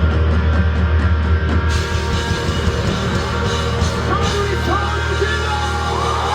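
Live rock band playing loud amplified music with a heavy steady bass, and sliding notes coming in from about four seconds in.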